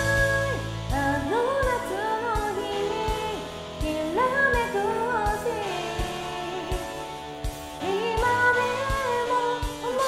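A woman singing a pop song over a karaoke backing track, with a kick drum beating about twice a second under the sung melody.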